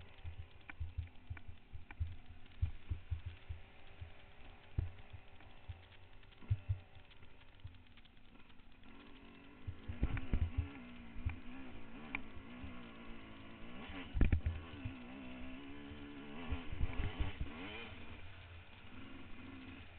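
Trail motorcycle engine running, its pitch rising and falling with the throttle, plainer from about halfway. Low thumps and knocks run throughout, with one loud knock about three-quarters of the way in.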